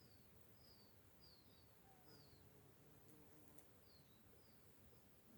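Faint near-silence with a small bird's high, short chirps repeating about every half second.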